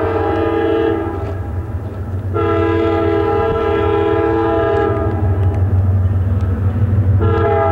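Air horn of a Norfolk Southern EMD F-unit diesel locomotive on an approaching train: a blast that ends about a second in, a long blast from about two seconds in to five, and another starting near the end, over the train's steady low rumble.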